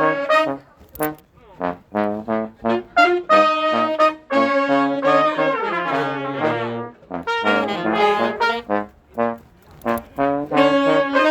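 Brass band playing an up-tempo jam: trumpets and trombones with a low bass line. Short detached notes give way to held chords in the middle that step downward, then the short punchy notes return.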